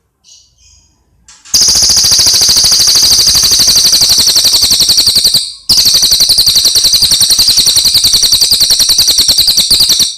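Cililin (Javan pygmy tit) song: a few faint chirps, then a very loud, rapid, even rattling trill. The trill runs about four seconds, breaks off briefly, and runs about four seconds more.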